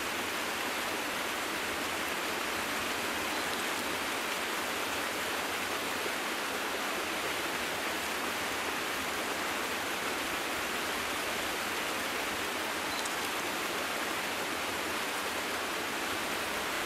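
Steady rush of running water, an even hiss that does not change.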